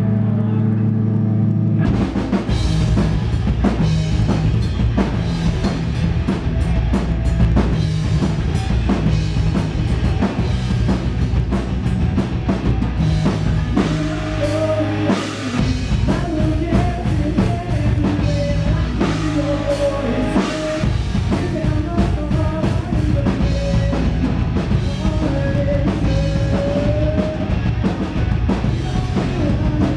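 Live rock band playing amplified through a small room: a held low chord, then about two seconds in the drum kit comes in and the full band, with electric guitar and drums, plays a driving song. A wavering melody line rises above it from about halfway.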